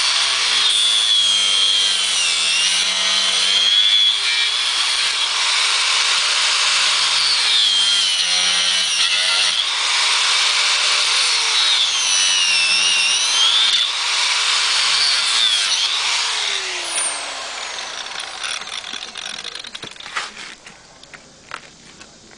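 A 4-inch angle grinder with a cut-off wheel cutting through the metal bead band that has rusted onto a motorcycle rim. The motor's pitch sags and recovers as the wheel is pushed into the metal. About three-quarters of the way through the grinder is let off and winds down with a falling tone.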